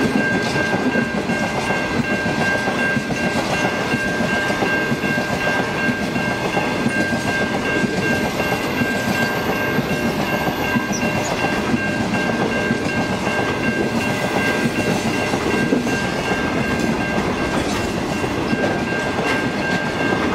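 Grain train wagons rolling past on the rails: a steady, continuous rumble of wheels on track, with a steady high-pitched tone held throughout.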